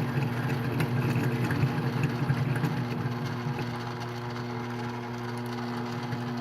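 Mini lathe running with a steady motor hum, with a rougher, uneven cutting noise over it for the first three seconds or so as the end of a piece of square stock is faced square.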